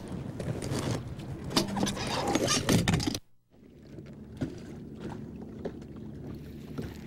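Knocks and a rushing noise on a bass boat's deck as the angler moves about on the bow. After a short break this gives way to a steady low hum of the boat's motor with a few light taps.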